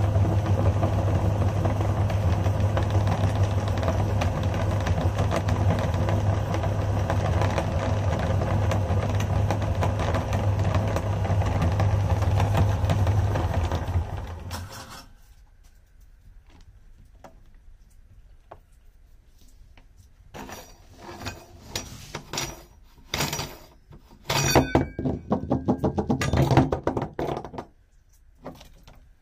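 Electric meat grinder's motor running steadily with a low hum while it extrudes ground chocolate candy, then stopping about halfway through. After it stops come scattered metal clanks and knocks as the grinder head's parts are taken apart.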